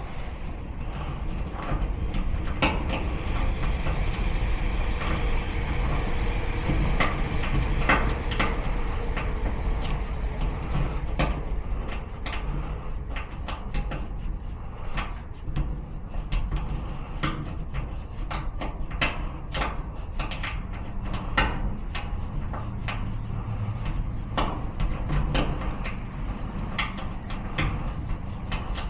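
Lock picking in a garage door lock cylinder: irregular small metallic clicks and taps of the picks working the lock, over a steady low rumble.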